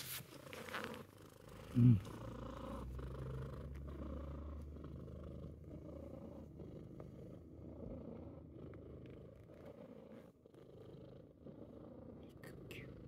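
Scottish Fold cat purring steadily in a low, continuous rumble, contented at being petted. About two seconds in there is one short, low sound that falls in pitch, the loudest moment.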